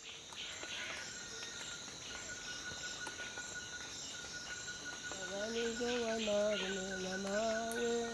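Steady trilling of crickets and other insects, with small chirps over it. About five seconds in, a single voice begins singing long, held notes that step slowly in pitch.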